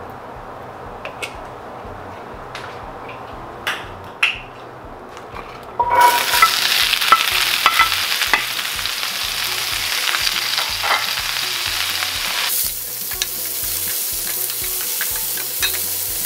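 Diced onion, celery and carrot dropped into hot olive oil in a cast iron skillet about six seconds in, setting off a loud, steady frying sizzle as the vegetables start to sauté. Before that, a few light knocks and clicks.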